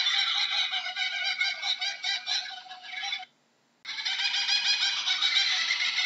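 Laughing kookaburras calling: a dense, rapid laughing call that thins and then breaks off completely for about half a second just past the middle, before resuming at full strength.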